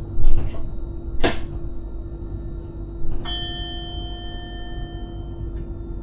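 Inside a train driver's cab on the move: a steady low rumble with a steady hum. There are two short knocks, then about three seconds in a single bell-like chime that rings on for about two seconds.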